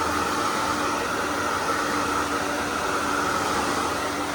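A loud, steady hiss carrying a steady whine and a lower hum, with no speech. It starts and stops abruptly.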